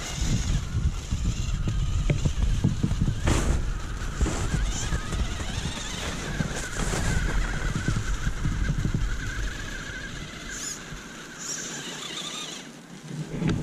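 Small brushed electric motor and drivetrain of an Axial UTB18 Capra RC crawler running on a 3S battery, whining as its tyres churn up a snowy slope, with a low rumble and a few sharp knocks throughout.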